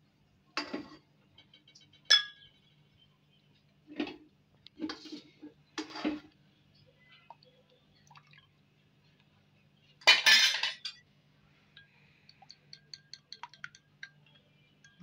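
A spoon knocking and clinking against a cut-glass bowl, several separate ringing clinks, then a louder clatter about ten seconds in. Quick light taps follow as the spoon stirs the kulfi mixture.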